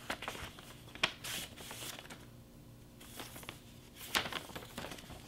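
A paper envelope being torn open by hand and a folded sheet of paper pulled out and unfolded, giving bursts of paper tearing and crinkling. There is a pause of about a second in the middle.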